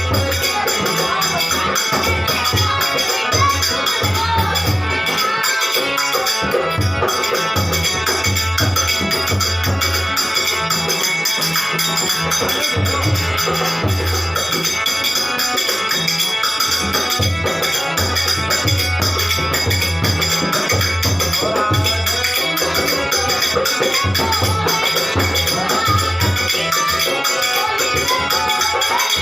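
Bhajan music with steady jingling percussion over a recurring low drum beat.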